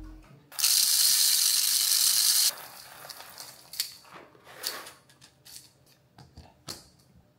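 A loud, steady hiss for about two seconds that cuts off sharply, then scattered light clicks and rattles of roasted coffee beans poured from a bag into the espresso machine's glass bean hopper.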